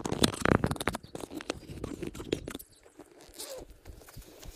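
A zipper being pulled and fabric rustling as a chest bag is opened by hand, after a few footsteps on dry grass at the start. The loudest scraping comes in the first second, and quieter rustles and small clicks follow.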